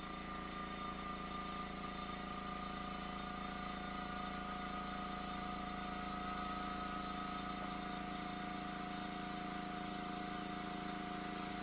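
Small piston airbrush compressor running with a steady electric-motor hum made up of several fixed tones.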